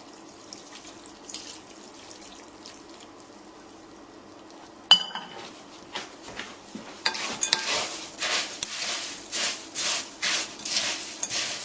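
Faint crackling as hot melted vegetable shortening soaks into a bowl of rice bubbles, then a sharp metallic clink about five seconds in. After that comes a spoon stirring the dry crackle mixture in the bowl, rustling and scraping in strokes about two a second.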